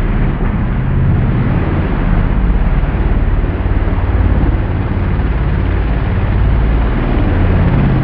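Polaris RZR buggy engine revving hard and continuously under full throttle as it climbs a steep hill.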